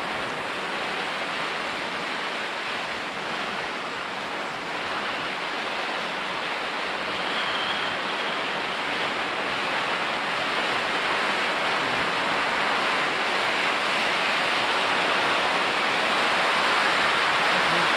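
An 11-inch MC Fireworks 'New World' cone fountain burning, spraying sparks with a steady, rushing hiss that grows gradually louder.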